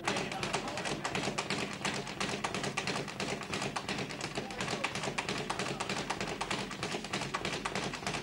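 Boxing-gym training noise: rapid, continuous tapping with light thuds, several a second, from gloves striking and feet moving.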